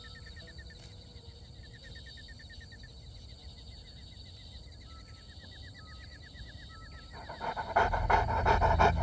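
A large dog panting rapidly and loudly, starting about seven seconds in. Before that there are several seconds of quiet with faint chirping in short repeated trains.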